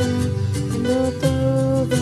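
A young girl singing a slow song into a microphone, holding each note, over a strummed acoustic-guitar accompaniment.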